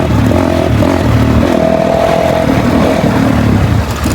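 Dirt bike engine running at a fairly steady speed while riding, with slight changes in pitch.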